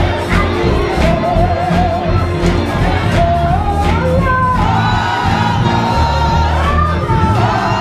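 Gospel music with singing: a voice holding long, wavering notes over steady bass and a regular beat, with the murmur of a crowd underneath.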